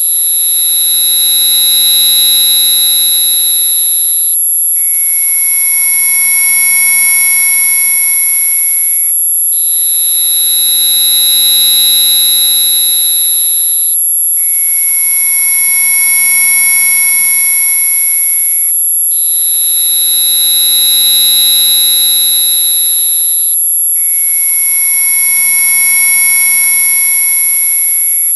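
Electronically generated mosquito-repellent tones: several steady, high-pitched tones sounding together in blocks of about four and a half seconds, cut by short breaks. A prominent middle tone switches between a higher and a lower pitch from one block to the next.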